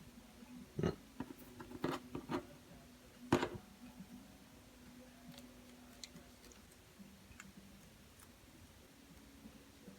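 Small clicks and knocks from keyboard parts being handled as the MPK Mini's rubber key contact pads are reinstalled. About five sharp clicks come in the first three and a half seconds, the loudest near the end of them, then only faint occasional ticks over a steady low hum.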